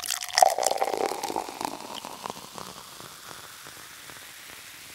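Beer being poured into a glass, its foam fizzing and crackling, dying away after about three seconds.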